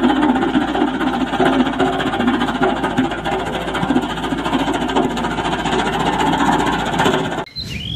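Sakai SV512D vibratory road roller running steadily as its steel drum rolls over a layer of loose stones; the sound cuts off suddenly shortly before the end.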